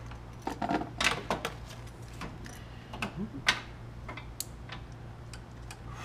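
Irregular clicks and light metallic taps of a small ratchet turning the screw of a hose clamp on an upper radiator hose, a few clicks a second in uneven bunches.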